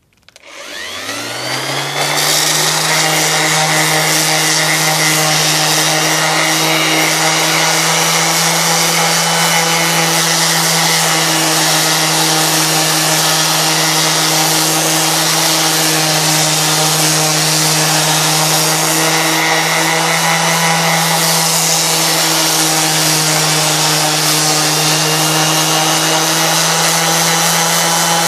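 Dexter Power 230 W random orbital sander switched on, spinning up in rising pitch over about two seconds, then running at a steady speed. Its P80 sanding disc grinds over the surface of a log wall.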